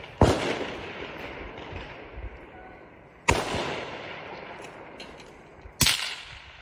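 Precision rifle fired three times, a little under three seconds apart, each sharp report trailing off in a long rolling echo.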